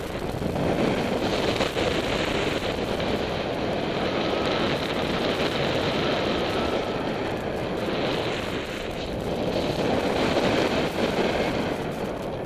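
Wind rushing over a helmet camera's microphone as the paraglider flies. It is a steady noise of airflow that builds in the first second and swells again near the end.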